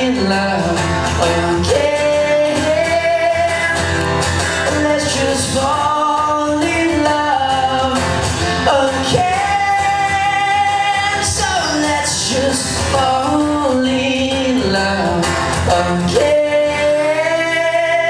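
Male singer vocalising long held, gliding notes without clear words, with his acoustic guitar strummed under them, in a live performance.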